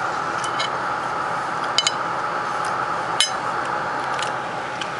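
Eating utensil clinking against a ceramic dinner plate as food is scooped up: several light clinks, a quick double one near two seconds in and the loudest just past three seconds, over a steady background hum.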